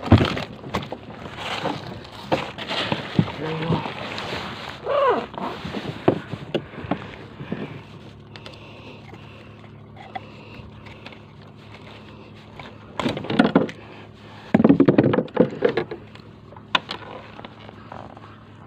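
A mangrove jack being handled and unhooked on the plastic deck of a fishing kayak. Knocks, thumps and clicks of hands, fish and tackle against the hull come thick and fast for the first several seconds, then thin out, with two short louder bursts of handling noise later on.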